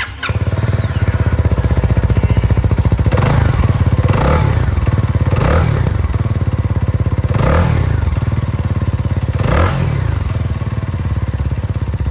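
CF Moto 250NK single-cylinder engine running steadily with a rapid even exhaust beat, the throttle blipped about five times so the pitch rises and falls back each time.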